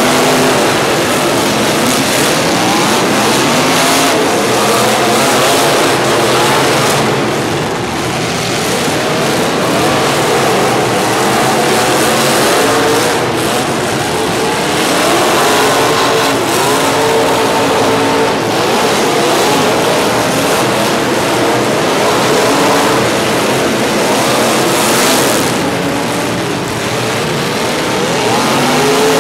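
Several car engines revving, their pitches rising and falling over one another, with tyres squealing.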